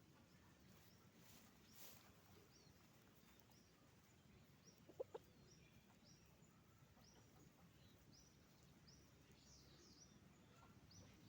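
Chickens at a farm, faint: a steady series of short high chirps, and two short clucks about five seconds in, which are the loudest sounds.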